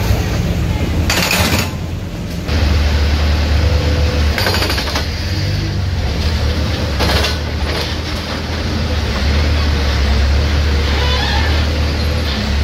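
Case backhoe-loader's diesel engine running with a steady low rumble while its boom works against a masonry structure, with three short, loud crunching bursts about a second in, around four and a half seconds and around seven seconds as the structure is broken.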